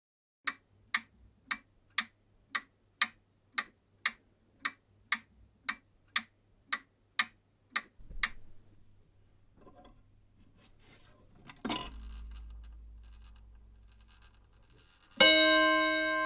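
Old mechanical clock ticking steadily, about two ticks a second. The ticking stops, then the striking mechanism rumbles and clunks as it winds up, and near the end the clock strikes its gong once with a long ringing tone.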